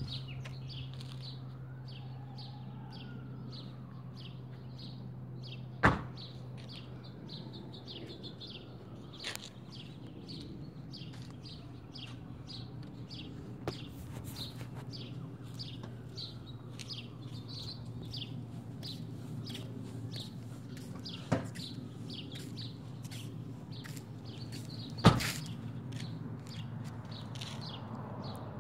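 Slide sandals slapping on a concrete sidewalk at a walking pace, about two steps a second, over a steady low hum. Three loud sharp knocks stand out, about six seconds in, then near the end.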